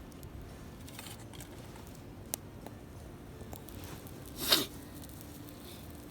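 Campfire crackling faintly with a few scattered sharp pops. A short, louder rustle comes about four and a half seconds in.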